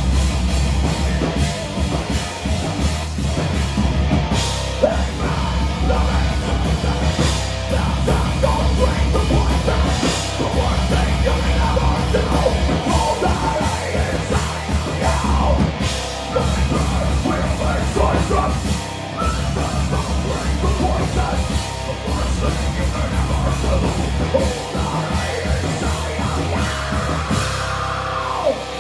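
Heavy metal band playing live: distorted electric guitars and bass over a drum kit, with cymbal crashes every few seconds.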